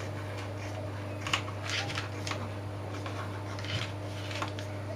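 Scissors snipping through puff pastry and the baking paper beneath it: a handful of short, irregular snips, the sharpest about a second and a half in. A steady low hum runs underneath.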